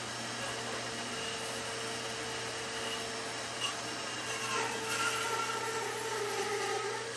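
Bandsaw running steadily with a low motor hum while its blade slowly cuts through a thick laminated wooden boat stem. From about four seconds in, the cut gets louder with a wavering whine.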